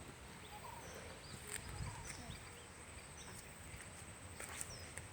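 Faint outdoor ambience with scattered short bird chirps and whistles, and a few faint clicks.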